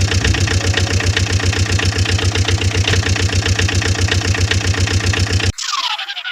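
A large engine running steadily with a fast, even throb, cutting off sharply about five and a half seconds in; a short, quieter sound with falling pitches follows near the end.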